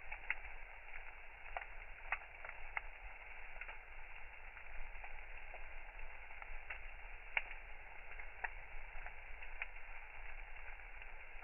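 Wood campfire crackling, with a steady faint hiss and irregular sharp pops and snaps, a few a second.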